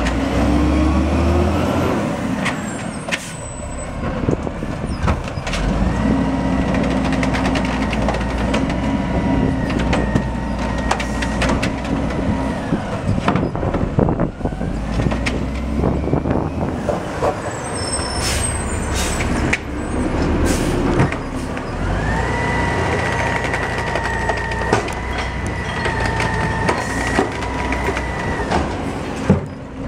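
Automated side-loader garbage truck emptying carts: the diesel engine revs up and holds a steady high pitch twice, for several seconds each time, while the hydraulic arm grabs, lifts and dumps a cart. Sharp knocks of the carts and arm, and hisses of air between stops.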